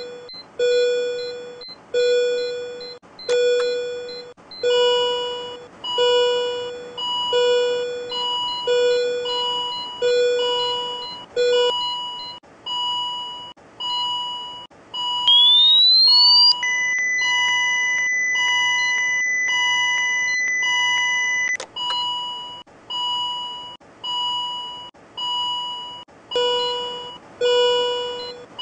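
Simulated cardiac monitor and defibrillator alarm beeping repeatedly, about one and a half beeps a second, its pitch shifting higher about twelve seconds in and back near the end. About fifteen seconds in a rising whine plays as the defibrillator charges to 300 joules, then a steady ready tone holds for about five seconds and is cut off by a sharp click as the shock is given.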